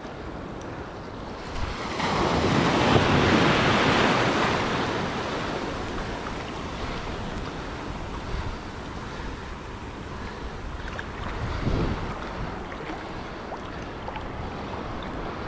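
Small surf waves washing and breaking around the wader, with wind buffeting the microphone; a louder rush of breaking water comes about two seconds in and fades over a few seconds.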